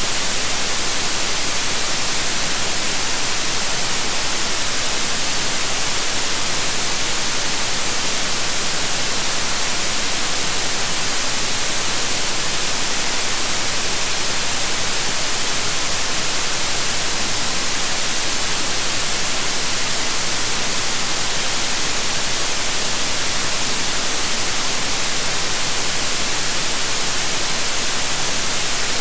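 Steady white noise: an even, unchanging hiss with most of its energy in the high frequencies.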